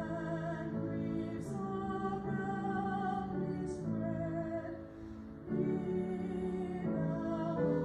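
Hymn sung slowly with instrumental accompaniment: long held notes, a singing voice with vibrato over the instrument.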